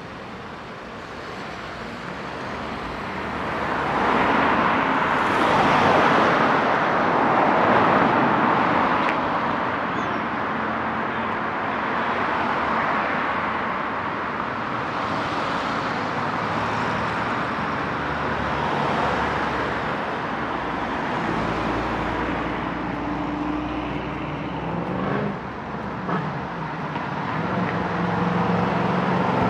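Road traffic: cars passing on a town street, with the loudest swell of tyre and engine noise about four to nine seconds in. Near the end a vehicle's engine hum grows louder.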